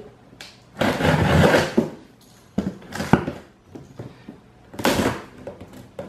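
Packing tape being torn off the top seam of a cardboard box, one long rip about a second in, followed by shorter scrapes and knocks of the cardboard flaps being handled.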